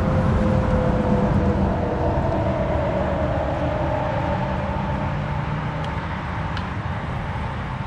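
Steady engine drone with a low rumble and two held tones that slowly drift in pitch.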